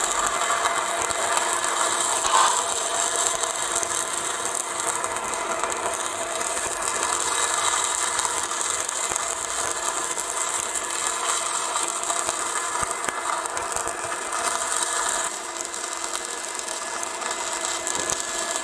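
Stick-welding arc crackling and sizzling steadily as the electrode burns, with a faint steady hum underneath. It gets slightly quieter about three-quarters of the way through.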